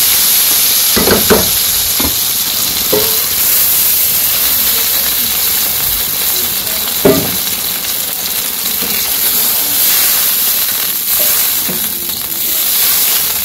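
Sautéed vegetables sizzling in a non-stick wok, then bubbling in water poured in for the curry, while a wooden spatula stirs them and knocks against the pan a few times, loudest about seven seconds in.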